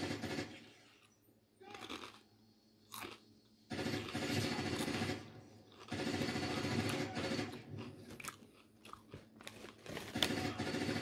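Doritos tortilla chips being bitten and chewed: a few separate crunches in the first three seconds, then longer spells of continuous crunching from about four seconds in.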